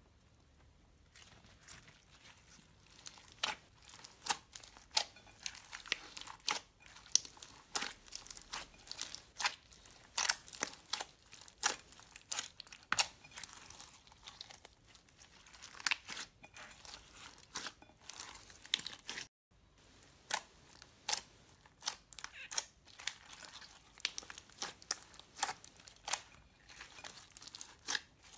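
Hands squishing and kneading a big lump of glossy slime packed with foam beads and glitter, giving fast, irregular sticky crackles and pops that begin about a second in.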